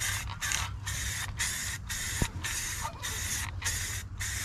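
Aerosol spray paint can with a trigger grip spraying rust-reforming paint onto a truck frame: the hiss comes in short bursts, about two a second, as the trigger is pulled and let go.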